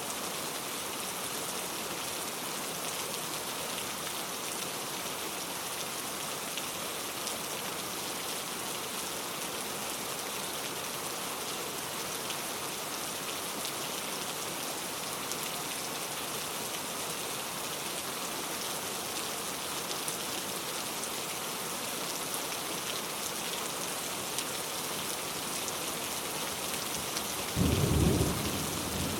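Steady heavy rain, an even hiss of falling water. Near the end a short, loud low rumble lasting about a second breaks in.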